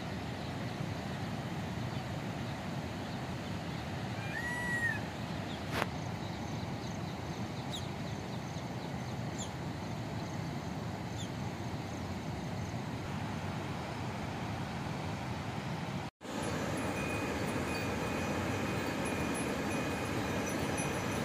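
Nar-Madi waterfall running full after heavy rain, its water pouring from the dam spillways as a steady rush. A short high chirp comes about four seconds in, and the sound drops out briefly about sixteen seconds in.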